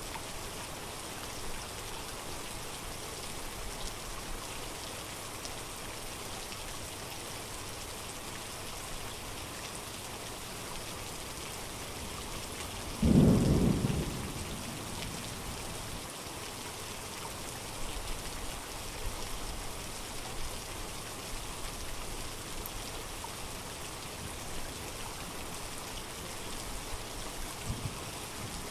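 Steady rain throughout, with one loud, low clap of thunder about halfway through that fades within a second or two.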